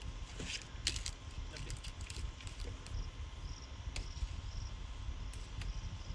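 Outdoor ambience of insects chirping in short, high repeated trills, with scattered sharp clicks.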